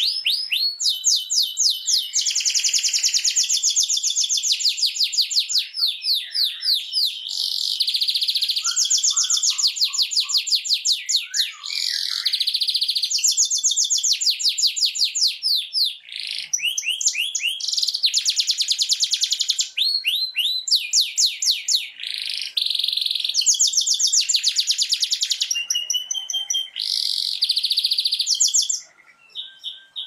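Domestic canary singing a long, fast trilled song: rapid runs of repeated high notes, one run after another, with only a few short breaks.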